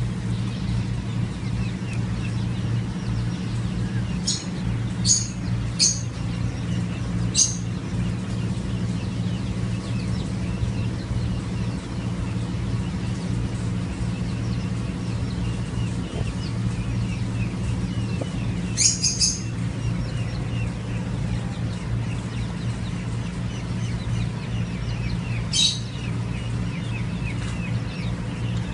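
Peachicks peeping: faint, soft chirps go on throughout, with a few sharper high peeps standing out, some single ones in the first quarter, three in quick succession about two-thirds through, and one more near the end. A steady low hum runs underneath.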